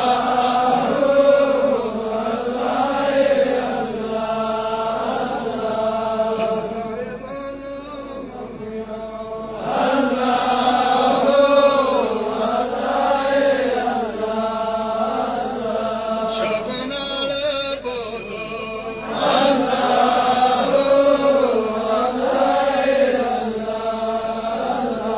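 A single voice chanting an Islamic devotional melody through a public-address loudspeaker, in long rising and falling phrases that swell and ease back twice.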